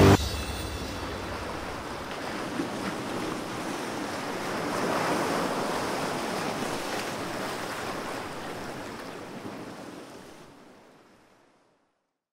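A steady rushing noise, like wind or surf, that swells a little about halfway through and fades out near the end.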